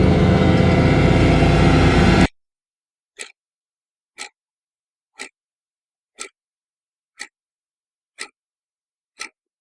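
A loud, dense low rumble with a steady hum cuts off suddenly about two seconds in. Dead silence follows, broken by a clock ticking once a second, seven ticks in all.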